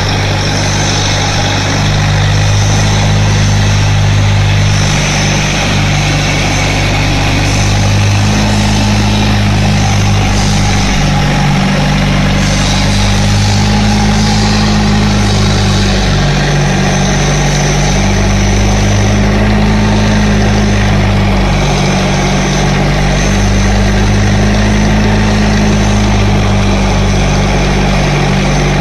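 Engine of a generator set running steadily on wood gas from a gasifier, holding an electrical load of about 12 kW with the unit running normally.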